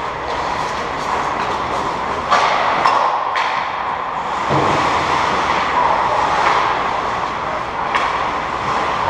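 Ice-hockey play in an indoor rink: skates scraping the ice make a steady hiss, with a few sharp clacks of sticks and puck, about two seconds in, near three and a half seconds and again near the end, and a dull thud about halfway through.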